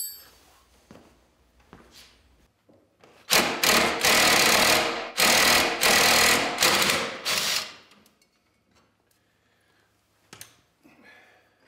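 Cordless impact driver running in about five short bursts, starting around three seconds in and stopping around seven and a half, backing out the bolts on a snowmobile's pogo-stick front suspension to free the spring. Faint clicks and knocks of tool handling come before and after.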